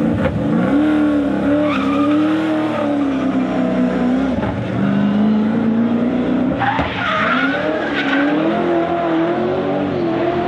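V8 engine of a Holden VZ Commodore drift car, its exhaust freshly reworked, revving up and down hard as the car drifts, with tyres squealing. The engine pitch swings up and down repeatedly, with a louder burst about two-thirds of the way through.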